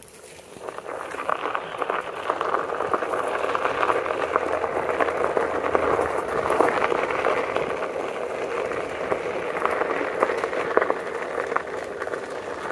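Onewheel Pint X's tyre rolling over a gravel trail: a steady crunching hiss full of small crackles, rising about a second in.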